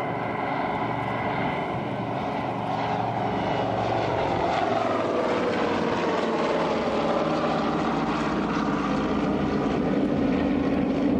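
Twin radial engines and propellers of a Douglas DC-3 droning in a low pass overhead; the pitch drops around the middle as the aircraft goes by, then holds steady.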